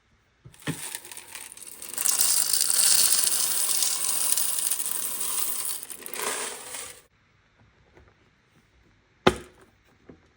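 Coffee burr grinder grinding beans for about six and a half seconds: it starts with a crackle, runs steadily, then stops sharply. A single sharp knock follows about two seconds later.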